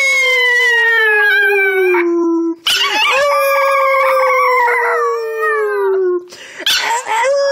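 Pomeranian puppy howling in greeting as its owner comes home. Two long howls, each sliding slowly down in pitch, with a short break between them, and a third howl starting near the end.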